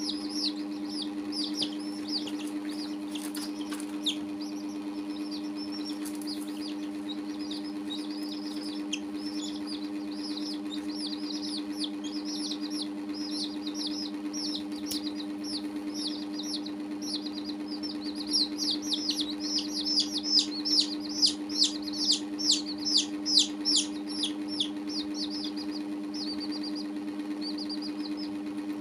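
Baby chicks and a duckling peeping continuously in quick, high, falling peeps, which become faster and louder for several seconds about two-thirds of the way through. A steady low hum runs underneath.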